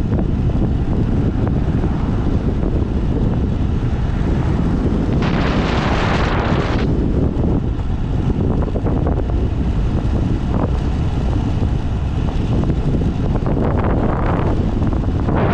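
Wind buffeting a GoPro 8 camera's microphone on a moving motorcycle: a steady low rumble, with a gust of louder hiss about five to seven seconds in and another near the end.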